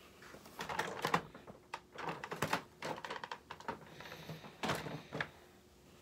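Irregular plastic clicks, knocks and light rattles as a Hoover Commercial WindTunnel upright vacuum is tipped and handled with its motor not running.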